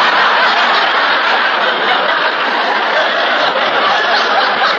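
Large studio audience laughing loudly and without a break, a long sustained wave of laughter at a gag.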